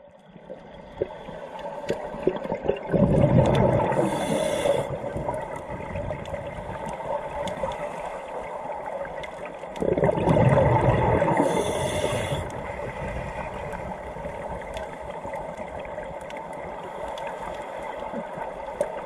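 Scuba diver's exhaled bubbles from the regulator, heard underwater: loud bubbling surges about three and ten seconds in and again at the very end, with a quieter steady hiss and faint scattered clicks between breaths.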